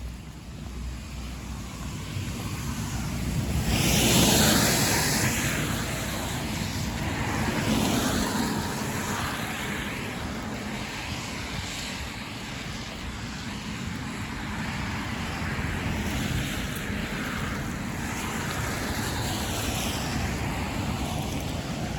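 Car tyres hissing on a wet road as a vehicle passes, loudest about four seconds in, with a smaller swell near eight seconds, over a steady wash of wet-street noise.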